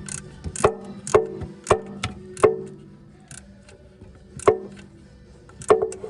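Sharp metallic clinks, each with a short ring: five about half a second apart, then two more spaced out. It is a quarter-inch wrench working a 10 mm bolt on the engine.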